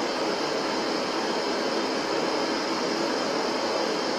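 Steady electronic static: an even hiss that does not change.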